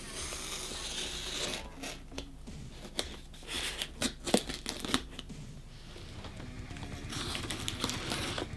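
A small plastic box cutter slitting the packing tape on a cardboard box, with scratchy tearing in three stretches and a few sharp clicks in the middle one.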